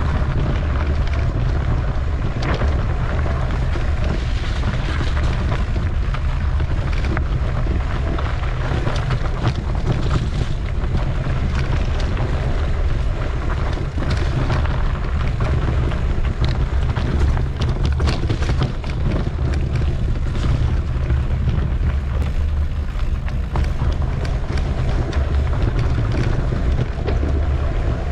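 Wind rumbling over the microphone of a mountain bike on the move, with a constant rattle and clatter of the bike rolling over a rough trail.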